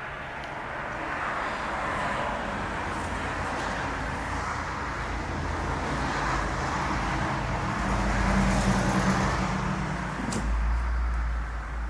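Steady road traffic noise, with a motor vehicle's low rumble growing stronger in the second half.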